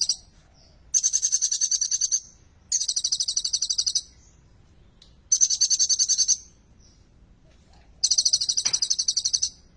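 Kolibri ninja sunbird singing in repeated bursts of very fast, high-pitched trilled notes, each burst lasting about a second, five times with short pauses between.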